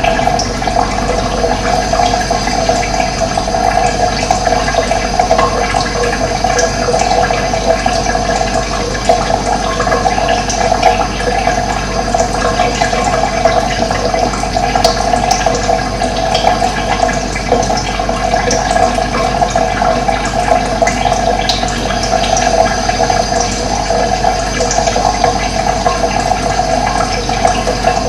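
Steady sound of running water, even and unbroken, with a few faint high chirps that may be birds.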